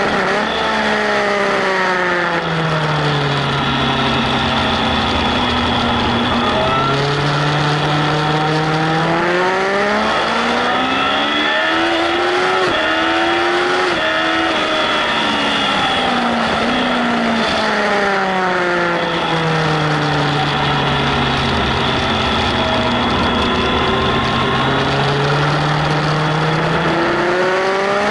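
Yamaha Fazer 1000 (FZ1) inline-four engine heard onboard at speed, its revs falling off and climbing again several times as the rider brakes, changes gear and accelerates, over steady wind noise.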